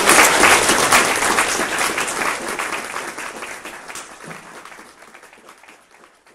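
Audience applauding, loudest at the start and dying away over about five seconds to silence.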